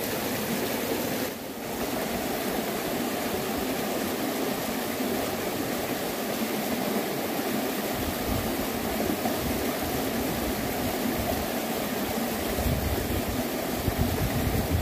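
Steady rush of flowing river water, with low rumbling gusts coming in from about halfway through.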